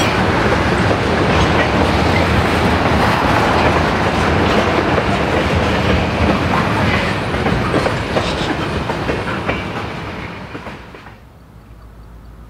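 Freight train rolling past, its wheels clacking over the rail joints, then dropping away sharply near the end.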